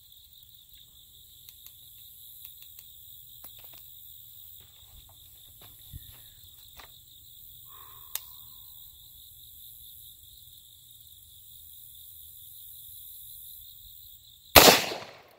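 A single shot from an AR-style rifle near the end: one sharp, very loud crack with a brief tail. It is a check shot fired after adjusting the optic while zeroing. Before it come a few faint clicks of handling the rifle, over a steady high insect buzz.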